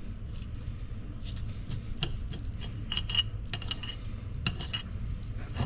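Metal utensils clinking lightly and irregularly against a plate or cutting surface while grilled chicken breast is being cut up, over a steady low hum.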